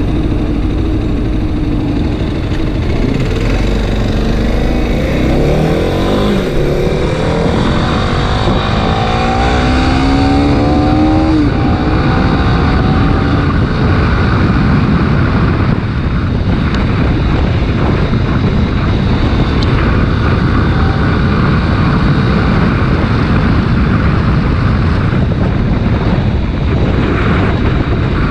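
Kawasaki Ninja 250 RR Mono's single-cylinder engine accelerating through the gears, its pitch climbing and dropping back at each shift in the first half. After that it is mostly covered by heavy wind noise on the microphone at speed.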